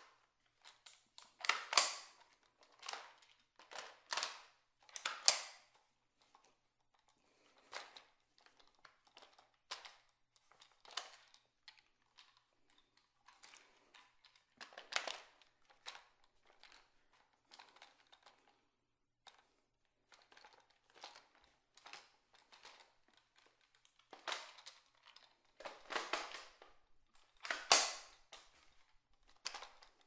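Ruger 10/22 rifle being reloaded: a string of sharp metal and polymer clicks and clacks as the magazine goes in and out and the action is worked, loudest in clusters about two, five, fifteen and twenty-seven seconds in. Each click rings briefly off the hard tiles of a small bathroom.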